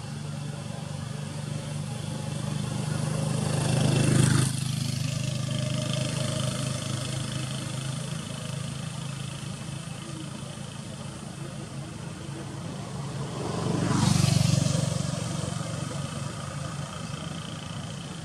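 Motor vehicles passing by twice, about four seconds in and again around fourteen seconds, each building to a peak and then fading, over a steady low engine-like hum.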